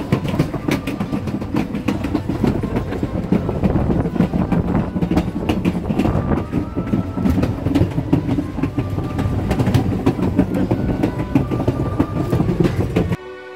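Narrow-gauge passenger car rolling along the track, heard from its open end platform: a loud steady rumble with sharp clacks of the wheels over rail joints and now and then a brief squeal. Near the end it cuts off suddenly and orchestral music takes over.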